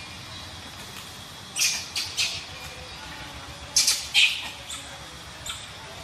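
Gray langurs giving short screeches: three in quick succession about a second and a half in, a louder pair around four seconds in, and a brief one near the end.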